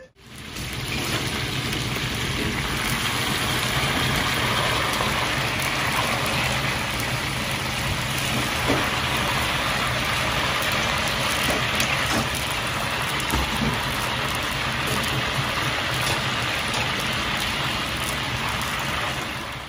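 Starch-coated chicken wing pieces deep-frying in a wok of hot oil: a steady, even sizzle of bubbling oil.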